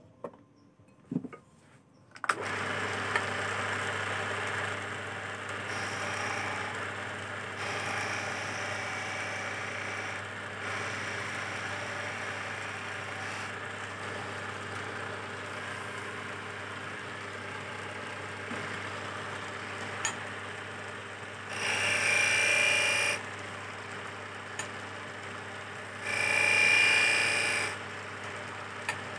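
A few small knocks, then a small electric wood lathe motor starts about two seconds in and runs steadily with a low hum. Twice near the end a hand tool cuts into the spinning teak chess piece, a louder scraping rasp lasting a second or two each time.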